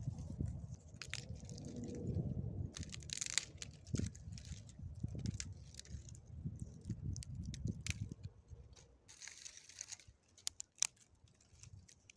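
Dry twigs and pine debris being crunched and snapped by hand, with sharp cracks scattered throughout. A low rumble sits under the first eight seconds or so.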